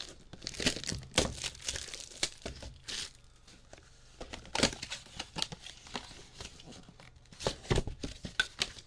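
Crinkling and tearing of the packaging as a sealed trading-card mega box is unwrapped and opened, in three spells of sharp crackles.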